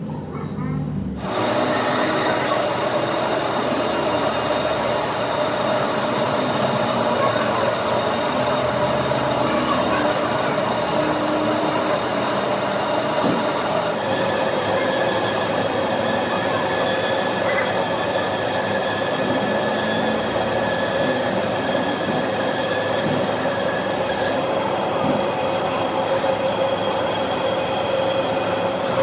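A workshop machine running steadily, with a continuous whine over a dense scraping, rubbing noise of metal being worked. It starts up about a second in and its pitch changes about halfway through.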